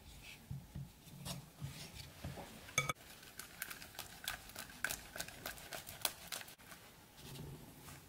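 Cold butter grated on a handheld metal grater into a bowl of flour: a run of short scraping strokes, about three a second, with one sharp ringing clink of the metal a little under three seconds in.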